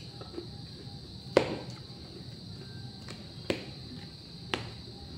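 Metal fork clicking against the plate while spearing salad leaves: three sharp clicks, the loudest about a second and a half in.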